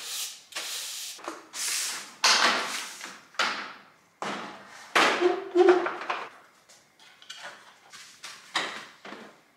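Clunks and rattles of a Diggs Revol dog crate, a plastic frame with wire-mesh panels, being shifted and handled, with packing foam pulled out of it: a series of separate knocks and clatters.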